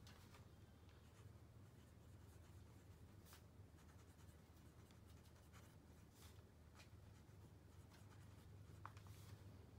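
Faint scratching of a fountain pen's 1.1 mm stub nib on notebook paper as words are written, in short strokes.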